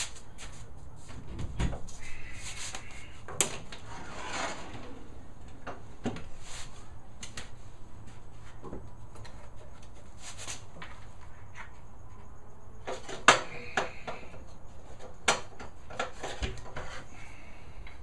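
A wooden storage chest opened and rummaged through for sandpaper: scattered knocks and clicks from the lid and its hardware, with short rustles of sanding sheets and discs being handled. The sharpest knock comes about two-thirds of the way in.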